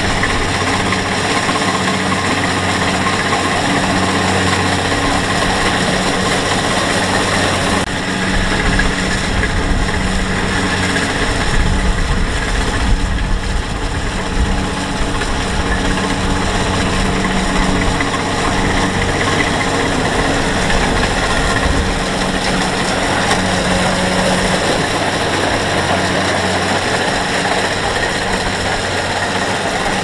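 Kubota DC-70 Plus combine harvester's diesel engine and threshing machinery running steadily with a low drone as it cuts standing rice.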